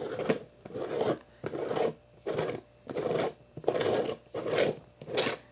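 Plastic screw lid being twisted onto the threaded mouth of a glass fermenter jar: a run of about eight short scraping strokes, roughly one every two-thirds of a second.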